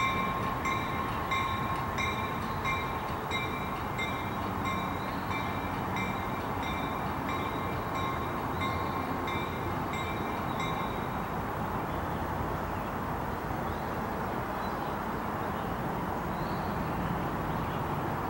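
Diesel switcher locomotive moving slowly with its bell ringing about one and a half times a second over the rumble of its engine. The bell stops about eleven seconds in, and the engine runs on.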